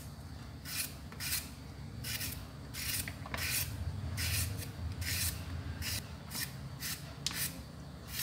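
Vegetable peeler shaving the skin off an unripe green banana: a quick series of short scraping strokes, about one every half second to second, each as the blade draws a strip of peel away.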